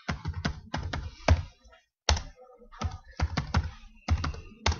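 Computer keyboard being typed on in short runs of sharp keystrokes, with a few harder single strikes among them.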